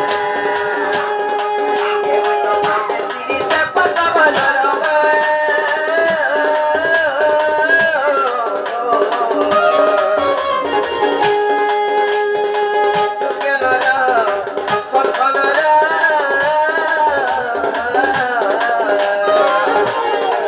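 Folk music accompaniment for a danda nrutya performance: a sustained, wavering melody over steady hand-drum beats.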